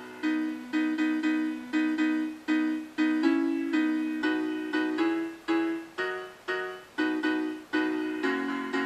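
A piano or keyboard playing a slow hymn tune in struck chords, about two a second, each dying away before the next; the chords thicken near the end.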